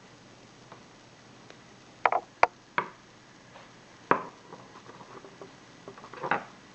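Tools knocking and clicking against an old ASSA lock cylinder while it is being pried apart. There are a few sharp knocks about two to three seconds in, another just after four seconds, and a short cluster near the end.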